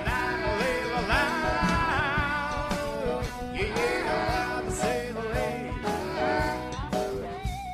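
Rock band playing, with drums and guitar, while a man's voice sings a high wordless wail over it, sliding and wavering in pitch.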